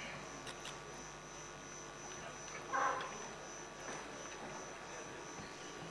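Quiet room tone of a large hall with a steady electrical hum, and a brief indistinct sound a little under three seconds in.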